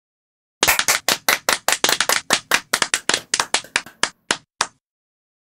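Hands clapping, about five or six sharp claps a second, starting about half a second in, then slowing to a few last spaced claps and stopping near the end.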